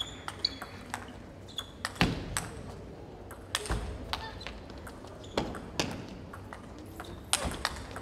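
Table tennis rally: the plastic ball knocking off the rackets and bouncing on the table, a run of sharp clicks at uneven spacing, often in quick pairs.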